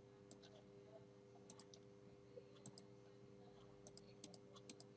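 Faint computer mouse clicks, some in quick pairs, scattered over near silence with a low steady hum.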